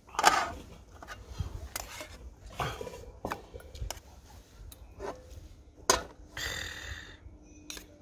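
Cooking utensils clicking and knocking against a camp pot in a string of sharp, separate strokes, with a short scrape about six and a half seconds in.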